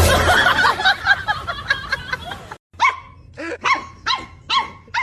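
Dogs barking: a dense, overlapping burst of barking that cuts off abruptly about two and a half seconds in, followed by a dog barking in a quick run of short, separate barks, roughly two to three a second.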